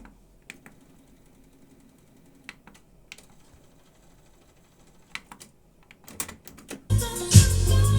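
Several sharp mechanical clicks and clunks with the music stopped, the sound of cassette deck transport keys being pressed; music playback starts again about seven seconds in.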